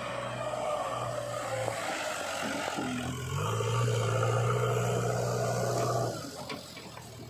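Heavy vehicle's diesel engine running steadily. It revs up about three and a half seconds in and drops back about six seconds in.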